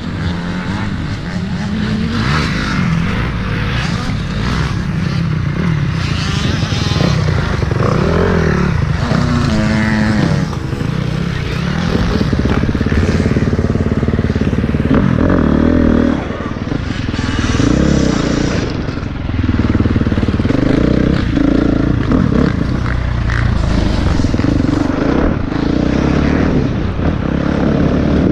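Motocross dirt bike engine heard from the rider's helmet camera, its pitch rising and falling as it accelerates and backs off along the track.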